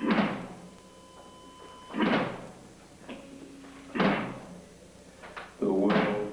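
A live rock trio in a slow, sparse passage: a heavy drum-and-cymbal hit lands about every two seconds, with quieter guitar and bass notes ringing between the hits.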